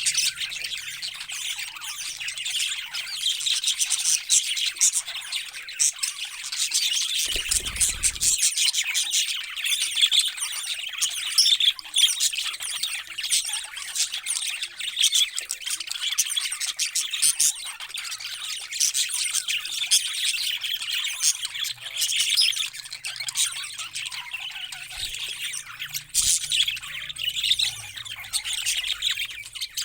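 Many parrots chirping and squawking at once, a dense, unbroken chatter of overlapping calls. A brief low rumble comes about seven seconds in.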